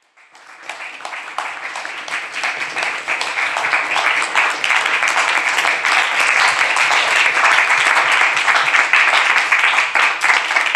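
Audience applauding, a dense patter of many hands clapping that swells over the first few seconds and holds steady, welcoming a reader to the microphone.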